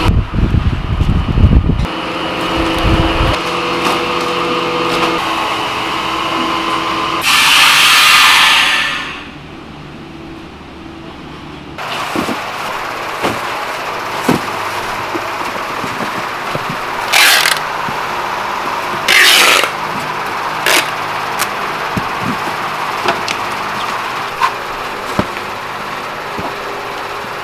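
Food-processing machinery running with steady tones, then a loud hiss lasting about two seconds, seven seconds in. After a quieter stretch it runs on with scattered knocks and two short hisses.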